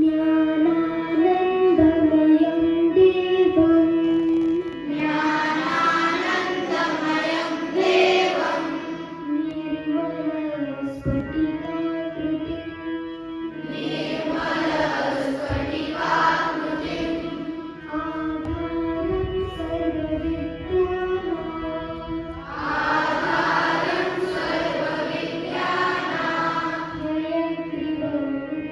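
Indian classical-style music over a steady drone, swelling three times into fuller, denser passages.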